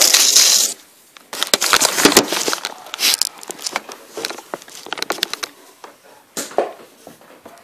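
Packaging being torn open and handled close to the microphone: a rush of tearing noise at the start, then an irregular run of crackles, crinkles and scrapes.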